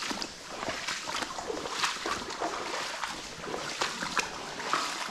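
Footsteps wading through shallow water in waders: irregular sloshing and splashing steps.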